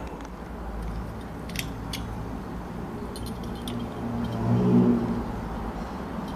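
Light metallic clicks and jingles from old door-knob hardware being handled and turned, over a steady low hum. A brief low hum swells and fades about four and a half seconds in.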